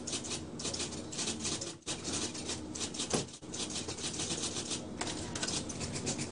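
Typewriter key clacks, a fast irregular run of taps with a couple of brief pauses, over a steady low hum.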